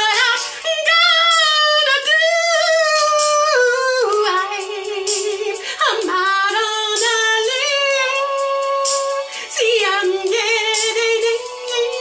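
A woman singing high, sliding, melismatic vocal runs with vibrato and no clear words, with no instruments to be heard.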